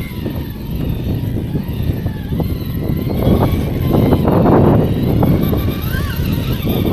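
Small electric motor and drivetrain of an RC rock crawler whirring under load as it climbs over rocks, loudest about halfway through.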